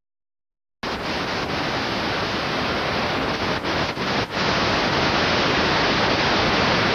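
Loud steady static hiss from a VHS tape playing over a blank, unrecorded stretch. It starts abruptly about a second in out of silence and dips briefly a few times near the middle.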